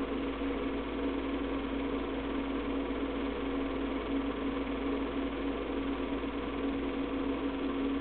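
Keystone Dual K-539 8mm/Super 8 movie projector running steadily during playback: an even mechanical hum with one strong steady tone.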